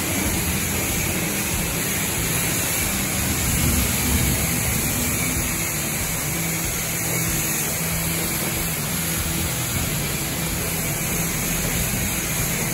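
Pressure washer jet spraying onto the steel floor of a pickup bed: a steady hiss of high-pressure water with a faint low hum underneath.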